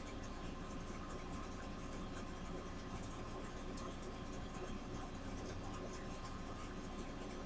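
Faint light tapping and scratching of a fine paintbrush dabbing paint onto a rhinestone-decorated picture frame, small irregular ticks over a steady background hum.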